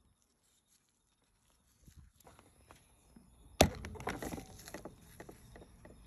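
Gloved hands handling a GE dishwasher's plastic wash pump assembly. After about two seconds of near silence come scattered light knocks, then one sharp, loud plastic click about three and a half seconds in, followed by a short run of clattering and rustling.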